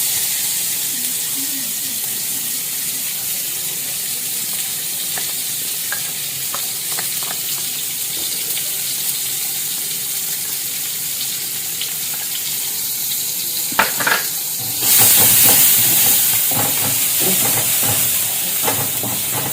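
Chopped garlic and chili frying in hot melted margarine in a pan, a steady sizzle with light scrapes and taps of a spatula stirring. A cluster of sharper taps comes about fourteen seconds in, and the sizzle then turns clearly louder.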